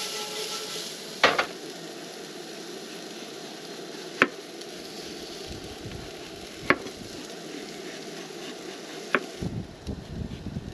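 Food sizzling in a skillet on a camp stove, a steady hiss. Over it come four sharp knocks about two and a half seconds apart, the first a double, from a knife cutting carrots down onto a wooden cutting board, with some handling rustle near the end.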